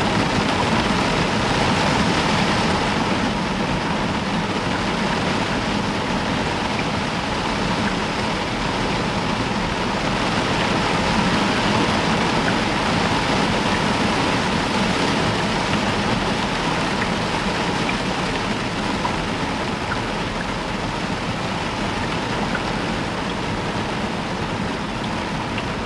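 Heavy rain falling steadily on a roof, a dense, even hiss.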